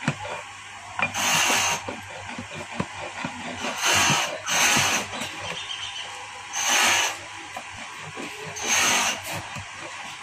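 A flat steel file rasping across a lead battery terminal post, filing it down: five strokes of about half a second each, with short pauses between them.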